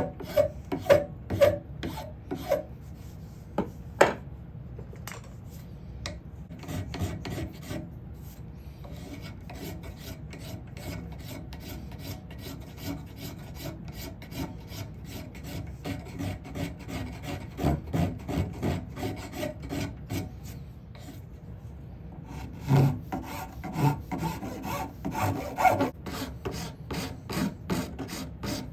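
Quick repeated rasping strokes of a hand tool across wood, shaping the glued-on sapwood horn of a rosewood saw handle. The strokes are louder near the start and again near the end.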